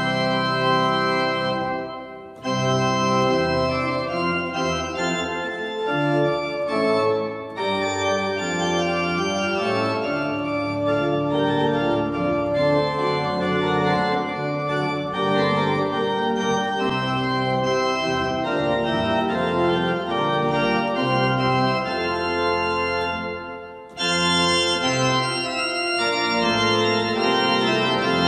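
Two-manual church organ playing a postlude: sustained full chords moving from one to the next, with brief breaks about two seconds in and near the end.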